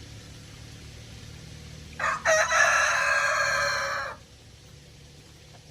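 A rooster crowing once, a loud call of about two seconds starting about two seconds in, over a faint low steady hum.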